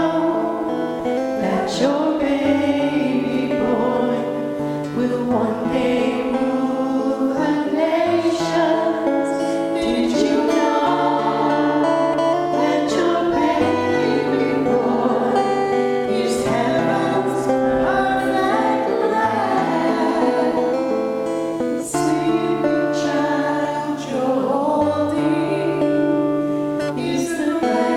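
Worship music: singing with guitar accompaniment over a held, stepping bass line.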